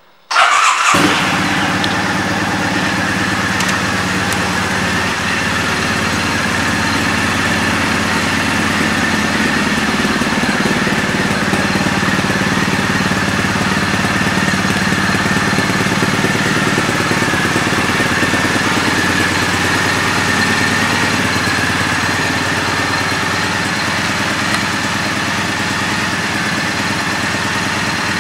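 2015 Triumph Bonneville T100's 865 cc air-cooled parallel-twin engine, fitted with an aftermarket exhaust, starting up about half a second in and catching at once. It then settles into a steady idle.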